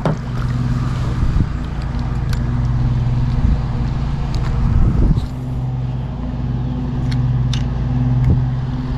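A steady low motor hum with a few light clicks and knocks.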